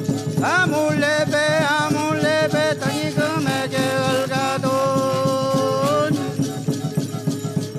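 Traditional-style folk music: a quick, even shaken-rattle beat under a melody line that slides up into its first note about half a second in and holds one long note a little past the middle.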